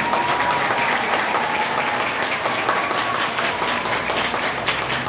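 A crowd applauding, many hands clapping steadily and densely.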